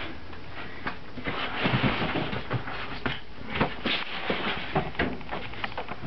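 Handling noise: scattered knocks and clicks with rustling, thickest about one and a half to two seconds in.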